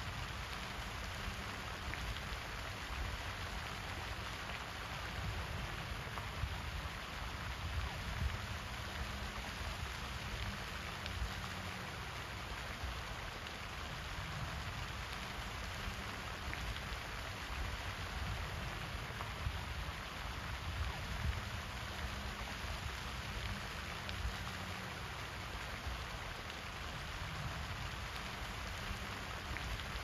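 Floating pond fountain spraying, its water falling back onto the pond surface in a steady hiss of splashing droplets, with a low, unsteady rumble underneath.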